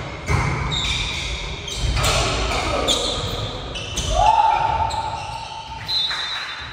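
Indoor volleyball rally: the ball struck sharply by hands and arms about every two seconds, with short shoe squeaks on the court floor and players calling out, echoing in a large gym hall.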